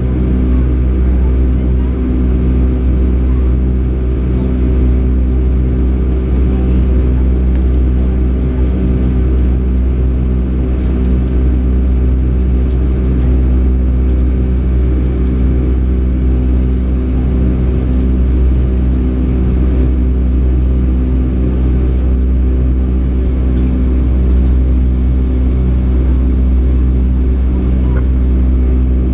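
Steady jet-engine drone and low rumble of a Boeing 757-200, heard inside the passenger cabin, with several steady engine tones. The sound holds an even level throughout.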